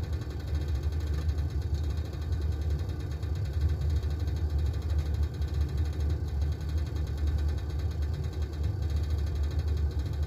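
Portable gas stove burner running under a kettle: a steady low rumble of flame and heating water.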